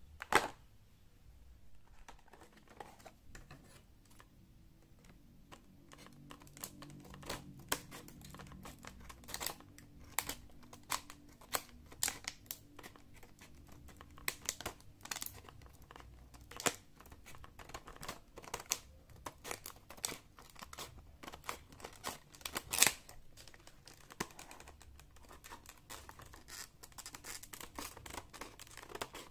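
Stiff clear plastic blister pack on a cardboard toy card being handled and flexed, crinkling with scattered sharp clicks and crackles. A loud snap comes just after the start and another about three quarters of the way through.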